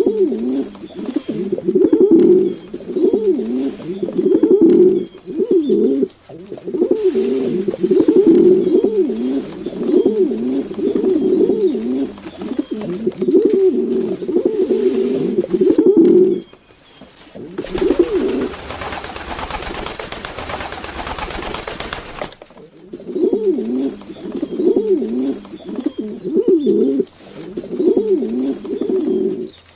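Pigeons cooing over and over, low rolling coos overlapping one another. About two-thirds of the way through, the cooing gives way to a few seconds of steady hissing noise, then starts again.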